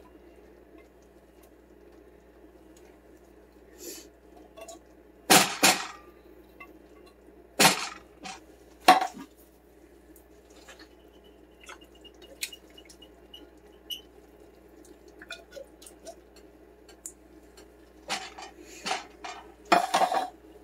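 Metal soup can and spatula clanking against a stainless steel skillet as condensed cream of chicken soup is scraped out into the pan: a few sharp knocks about five to nine seconds in and another run of clanks near the end, over a steady low hum.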